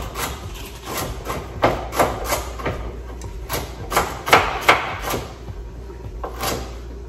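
A kitchen knife chopping vegetables on a cutting board: irregular knocks in short runs, stopping near the end.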